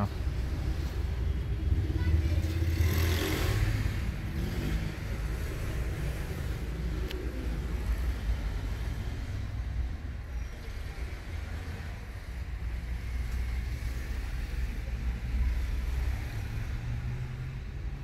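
Road traffic rumbling steadily, with a vehicle passing more loudly about three seconds in and a single sharp click near the middle.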